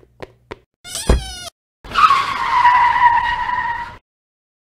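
Car sound effects: a few light clicks, a short rising engine rev about a second in, then a tyre screech for about two seconds that cuts off suddenly.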